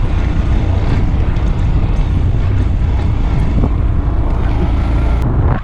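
Steady wind buffeting on the camera's built-in microphone over the running 125 cc single-cylinder engine of a 2015 Honda Grom while riding.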